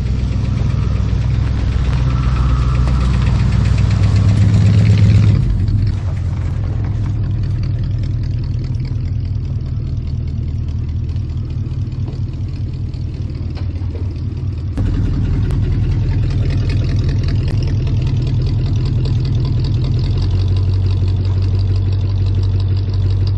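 1959 Dodge Coronet's engine running steadily. It is louder for the first five seconds, then settles lower, with a slight rise about fifteen seconds in.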